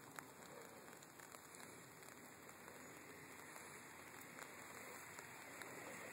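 Faint, steady light rain falling, with scattered single drop ticks.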